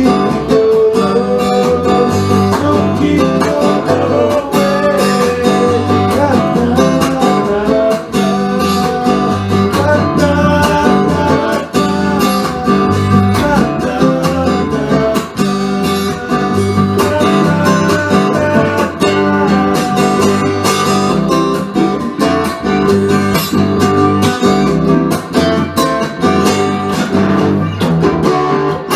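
Blues band music: an instrumental break led by guitar over a bass line, with a steady beat and no singing.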